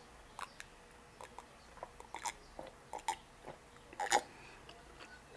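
Close-miked gulping and swallowing while drinking from a glass: a series of short, irregular wet clicks, the loudest about four seconds in.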